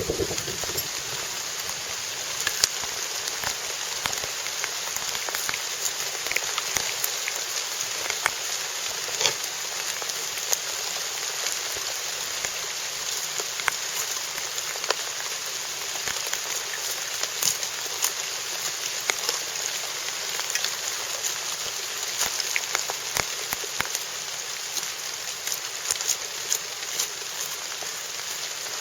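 Steady rain falling on a surface, with scattered sharp ticks of drops.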